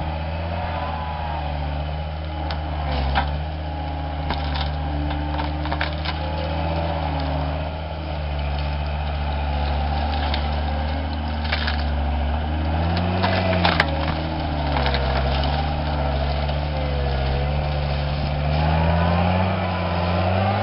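A John Deere compact track loader's diesel engine working hard under load, its hydraulics whining up and down in pitch, while wood and roots crack and snap in a string of sharp breaks, the sharpest about two-thirds through, as a tree is pulled out of the ground.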